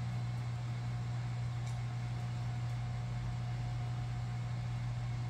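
A steady low hum with a constant hiss underneath, unchanging throughout.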